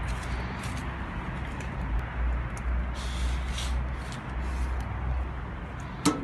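Street ambience with a low, uneven rumble, as a cardboard parcel is slid out of a parcel-locker compartment with a brief scraping rustle about three seconds in; near the end the locker's metal door is pushed shut with a click.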